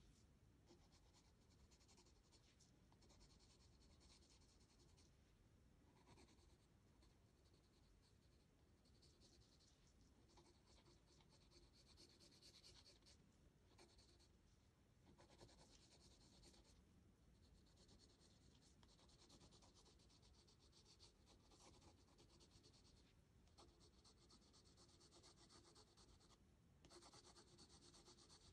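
Graphite pencil shading on sketchbook paper: faint, fast scratchy strokes in runs of a few seconds, with short pauses between runs.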